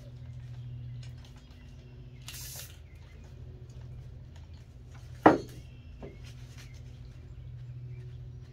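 A short hiss of alcohol spritzed from a spray bottle about two seconds in, over a steady low hum. The loudest sound is a sudden squeak that falls quickly in pitch a little after five seconds, with a fainter one just after.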